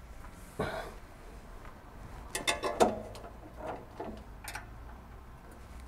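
Faint clicks and scrapes of metal as a screw is fitted and turned into the printer stand's metal end bracket, a cluster of them a little past two seconds in.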